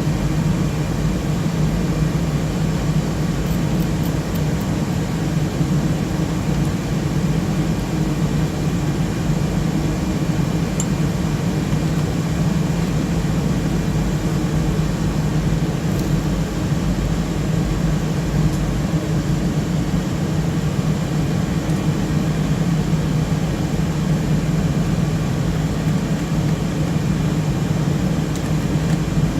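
Steady, loud whir of server cooling fans, with a low hum and faint steady tones, unchanging throughout.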